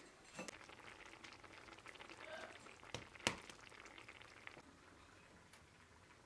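Quiet kitchen sounds: faint crackling, with a sharp click about three seconds in and a louder one just after it.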